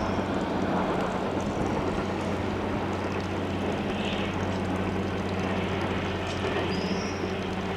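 Engine of a track maintenance machine running steadily, a low even hum.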